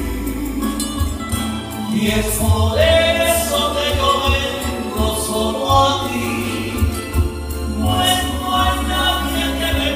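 A man singing a Christian worship song into a handheld microphone, amplified through a PA, over instrumental accompaniment with a strong steady bass.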